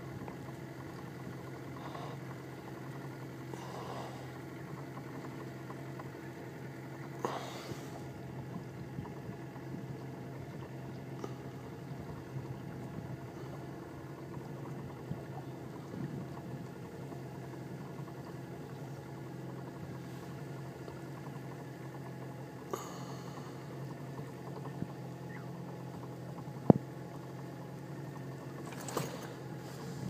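Steady low hum of an idling boat engine, with a few brief knocks and one sharp click late on.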